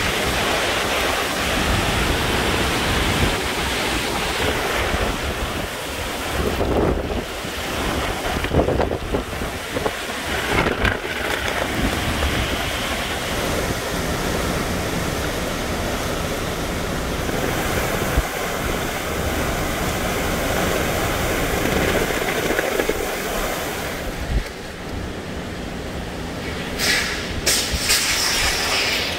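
Hurricane wind and rain: a loud, continuous rush of storm noise with gusts buffeting the microphone, swelling and easing, with a short lull and then sharp hissing gusts near the end.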